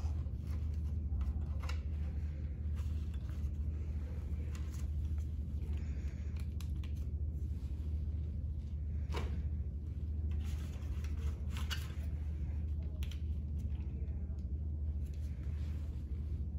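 Plastic packaging and a catheter kit tray being handled: scattered light clicks, taps and crinkles over a steady low hum.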